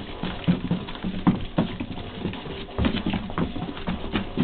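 A dog's paws pattering in quick, irregular taps as it scrambles and jumps about chasing lights.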